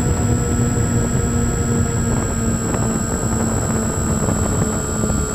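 RC airplane's motor and propeller running steadily, heard from a camera on the plane, with a high steady whine over it and wind rumbling on the microphone.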